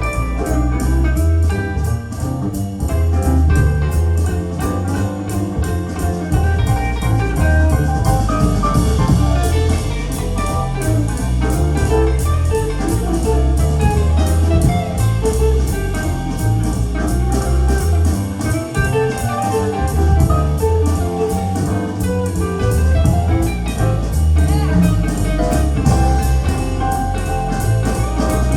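Guitar-led music with drums played back through KEF LS50 Meta bookshelf speakers and dual subwoofers, with strong, full bass.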